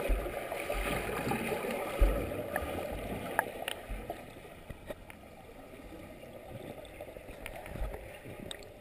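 A front-crawl swimmer's arm strokes and kicks heard from underwater: muffled churning and bubbling with a few low thumps, fading after about four seconds as the swimmer moves away.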